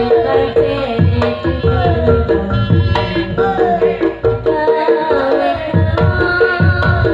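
Live reog Ponorogo gamelan music: kendang hand-drum strokes in a steady rhythm under a melody with recurring falling, sliding notes.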